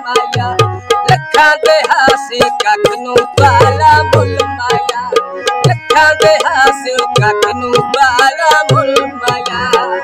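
Tabla and harmonium playing a Punjabi mahiye tappe, with a man singing over them. The tabla keeps a quick, steady rhythm with deep bass strokes, and the harmonium holds sustained reedy notes under the voice.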